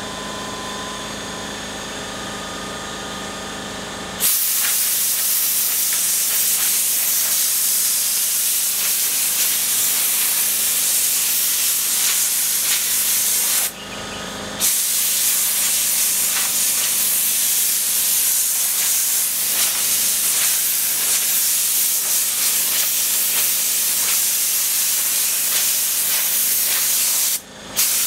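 Compressed-air blow gun hissing loudly as it blows sanding dust off a wooden tabletop, in long blasts with two short breaks, one about halfway and one near the end. For the first few seconds, before the air starts, only the steady hum of the air compressor is heard.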